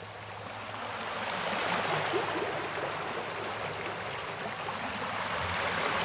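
A steady rushing noise like running water, growing louder over the first two seconds and swelling again near the end.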